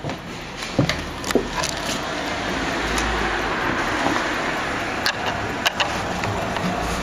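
c.1943 National DSSH vintage diesel stationary engine running steadily, with a few sharp clicks about a second in and again around five seconds in.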